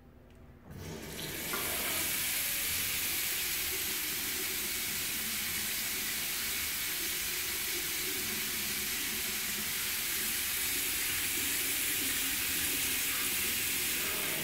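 Water pours from a fuel-pump-nozzle spout into a stainless steel sink bowl, making a steady splashing hiss. It starts about a second in, as the valve is opened.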